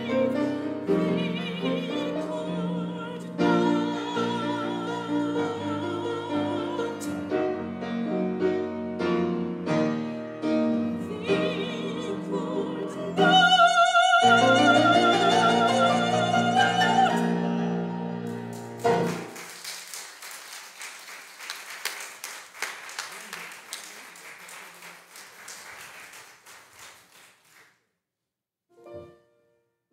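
A woman singing a solo song with wide vibrato, accompanied by a piano, rising to a loud, long-held high note near the middle before the song ends about two-thirds of the way through. Applause follows and fades away near the end.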